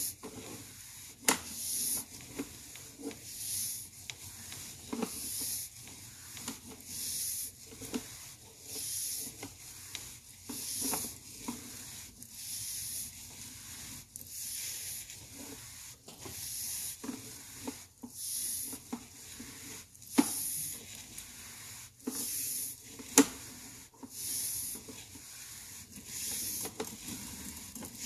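Sewer inspection camera being pushed through the line, with a rhythmic hiss about once a second as the push cable is fed in, and a few sharp clicks.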